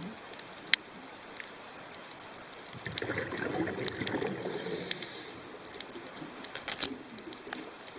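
Underwater ambience: scattered sharp clicks, with a bubbling rush from about three to five seconds in.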